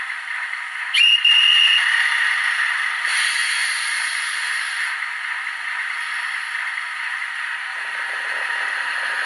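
DCC sound decoder in an HO scale REE Renault VH railcar model playing through its small speaker: a short high horn note comes in suddenly about a second in, then a steady hissy diesel running sound carries on as the model moves.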